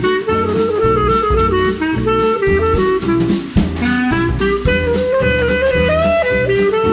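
Instrumental background music with a steady drum beat under a melodic lead line.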